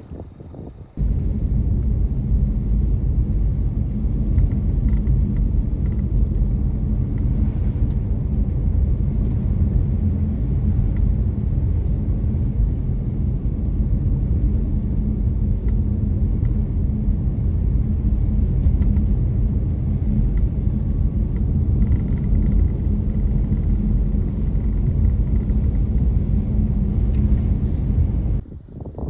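Steady low rumble of a car driving, road and engine noise, starting abruptly about a second in and cutting off near the end.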